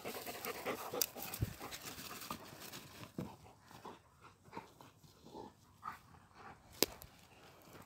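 Central Asian Shepherd dogs moving about, with faint panting and scattered rustles and knocks. There is one sharp click near the end.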